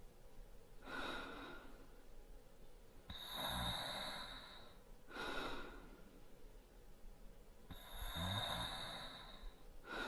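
A man breathing slowly in his sleep, snoring lightly: five breaths, short ones alternating with two long ones that carry a faint low snore.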